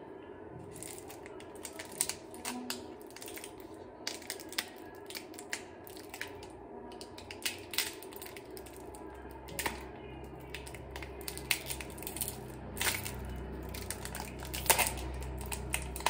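Plastic wrapper of an Oreo biscuit packet crinkling and crackling in the hands as it is opened, a string of irregular sharp crackles.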